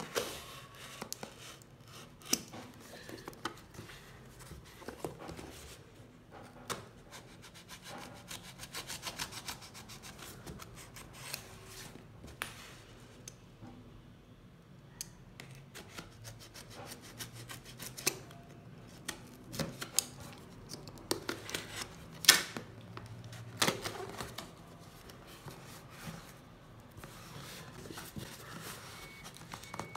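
Utility knife slicing and scraping through packing tape on a cardboard box, with rustling cardboard and scattered sharp clicks and taps as the box is handled; the box flaps are pulled open near the end.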